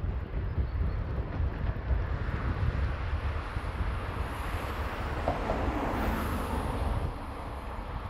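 Wind buffeting the microphone in gusts, under a broad rushing noise that swells through the middle and eases off near the end.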